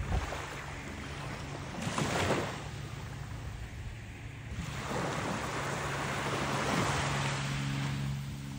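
Small waves breaking and washing up on a sandy beach, surging about two seconds in and again for a few seconds from the middle on, with a steady low hum underneath.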